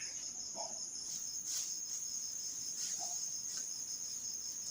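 Crickets trilling steadily, a continuous high-pitched chirr, with a few faint clicks over it.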